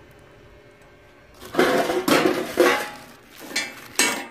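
Stainless steel kitchen tongs and an egg ring clattering against the steel griddle plate and fryer of a burger griller: a run of metal clinks and knocks starting about one and a half seconds in, with two more near the end.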